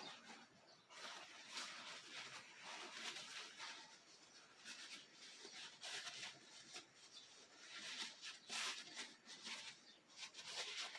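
Faint, uneven rustling and rubbing of a paper towel being handled and wiped against the wood.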